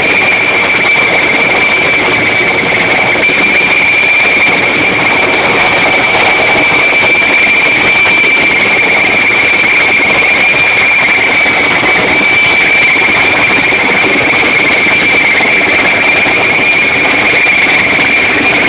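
Sikorsky S-64 Skycrane heavy-lift helicopter hovering close by: a loud, steady high turbine whine over a dense rush of rotor noise.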